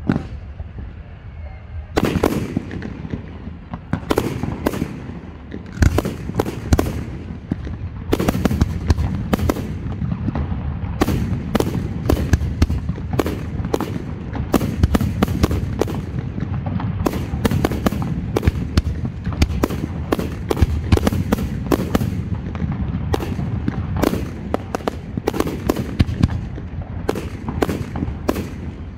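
Aerial fireworks display: a low rumble, then from about two seconds in a rapid series of sharp bangs as shells are launched and burst, several a second, over a continuous low rumble.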